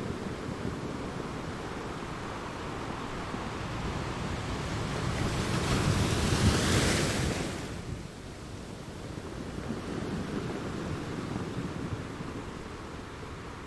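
Water crashing on rocks: a steady rushing that swells to its loudest about six to seven seconds in, then falls away abruptly about eight seconds in and carries on quieter.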